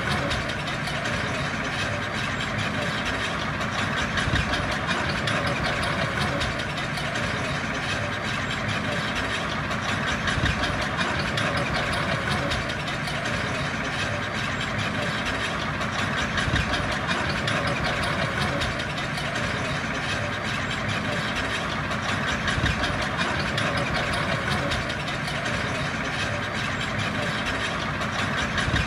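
Diesel engine of heavy earthmoving equipment running steadily.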